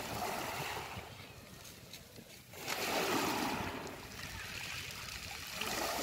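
Small, gentle waves washing up a beach of smooth round pebbles (mongdol) and drawing back, the stones rattling as they roll in the water. The wash swells about every three seconds: at the start, about three seconds in, and again at the end.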